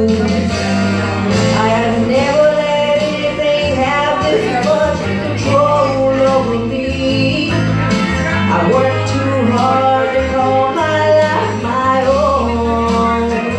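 Live band music, a slow rock ballad: keyboard backing with a pitched melody line over it.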